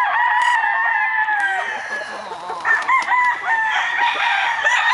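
Roosters crowing: one long crow at the start, then several more crows overlapping from about halfway through.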